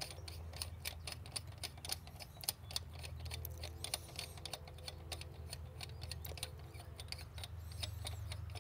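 Irregular light clicking and ticking as the threaded aluminium bowl of an oil catch can is unscrewed by hand to be taken off.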